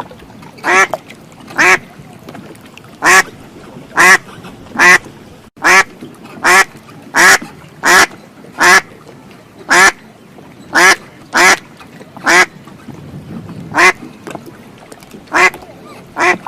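Duck quacking over and over: loud single quacks, about one a second, with short gaps between them.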